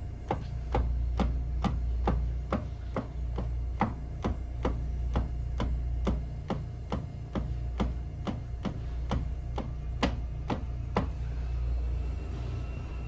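Instep of a socked foot kicking the edge of a galvanized sheet-metal housing again and again in Kyokushin haisoku geri conditioning, about three sharp knocks a second, stopping about eleven seconds in. A steady low hum runs underneath.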